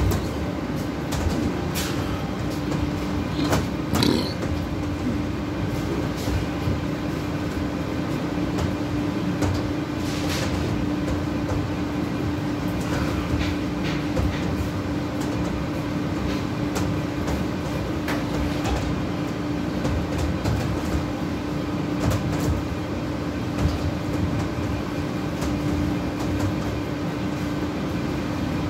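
Steady hum of commercial kitchen machinery, with one constant low tone over even noise. Occasional light clicks and knocks of kitchen handling break through.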